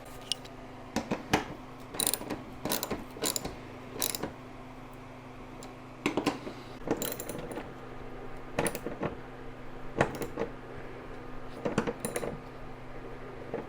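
Metal hardware and hand tools clicking and clinking as a hood hinge is bolted onto a car, in irregular bursts of sharp clicks with short pauses between them. A low steady hum runs underneath.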